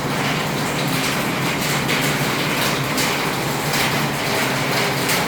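Steady rain falling on the roof overhead, loud where no ceiling has been fitted under it yet.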